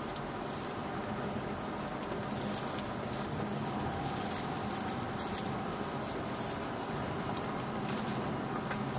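Steady engine and tyre noise inside the cabin of a 2007 Subaru Forester with its flat-four engine, driving slowly over a snow-covered dirt track, with a few faint light ticks along the way.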